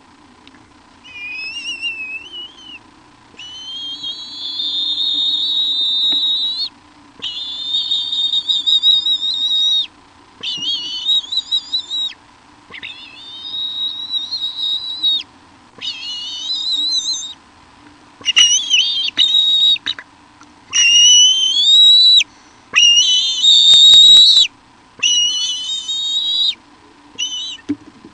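A string of about a dozen high, wavering whistled phrases, each one to three seconds long, loudest in the second half. A faint steady electrical hum runs underneath.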